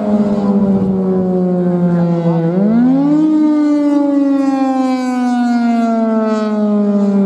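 Federal Signal Thunderbolt 1000 outdoor warning siren sounding its steady alert tone, the pitch slowly sagging. About two and a half seconds in it growls: the pitch drops briefly and climbs quickly back up before sagging again.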